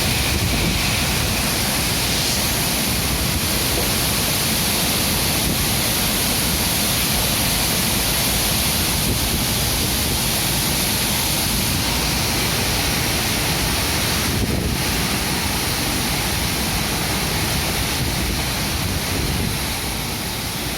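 Strong wind rushing through tree foliage, a steady loud hiss, with wind rumbling on the microphone.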